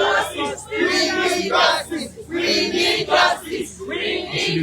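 A crowd of protesters chanting together, many voices at once.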